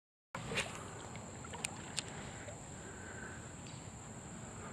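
Shallow creek water stirring and lapping around a wading angler, starting abruptly after a moment of silence, with a few small sharp clicks in the first couple of seconds and a steady high-pitched whine underneath.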